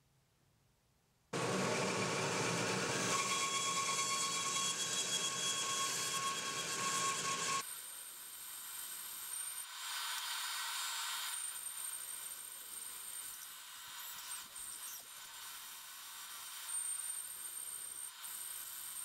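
Bandsaw running and cutting through a block of dense Vera wood. After about a second of quiet it starts as a loud steady noise with a few steady whining tones. It drops abruptly to a quieter, higher hiss about halfway through.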